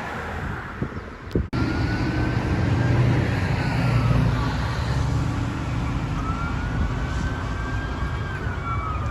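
Federal Signal PowerCall electronic siren sounding a slow wail that rises and falls twice, over a heavy vehicle engine rumble. It starts after an abrupt cut about a second and a half in, which ends a stretch of outdoor noise.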